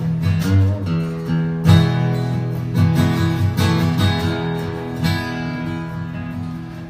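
Acoustic guitar strumming chords in an instrumental break between verses of a live folk-country song.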